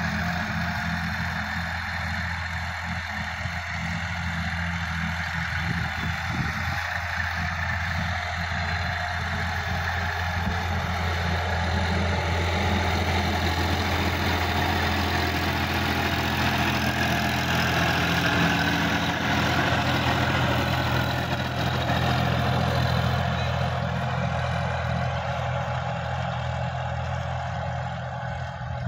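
Sonalika DI-50 RX tractor's diesel engine running steadily under load as it drives a rotavator through the soil. It grows louder around the middle as the tractor passes close and fades near the end as it pulls away.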